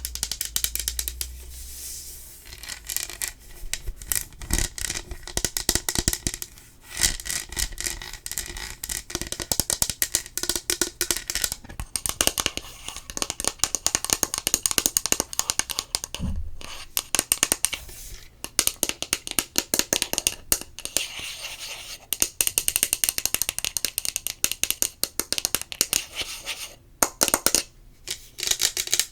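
Fast, dense ASMR trigger sounds close to the microphone: rapid clicks and crackles at full volume, broken by a few brief pauses.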